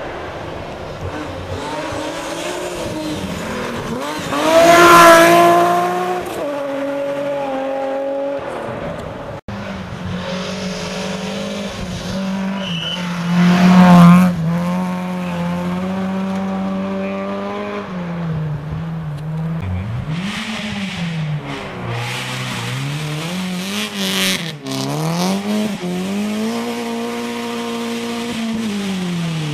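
Rally cars on a gravel special stage, engines revving hard with gear changes; two loud close pass-bys about 5 and 14 seconds in. Near the end the engine pitch dips and climbs several times as a car brakes and accelerates through a corner.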